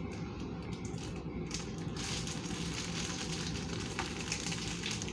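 Crinkling and rustling of packaging being handled, starting about two seconds in, over a steady low hum.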